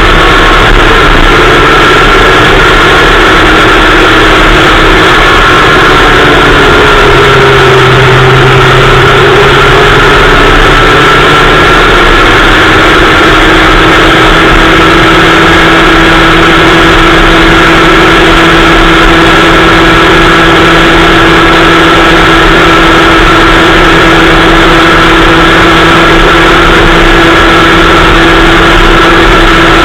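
Kid Kart's small two-stroke engine running hard, recorded very loud by an onboard camera, with a steady pitch that sags briefly about a quarter of the way in before settling again.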